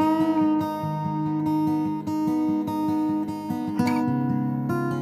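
Background music: acoustic guitar playing steady plucked and strummed chords.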